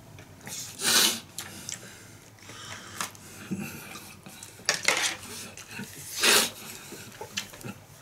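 A fork clinking and scraping against plates of food, in several short scrapes a second or two apart with small clicks between.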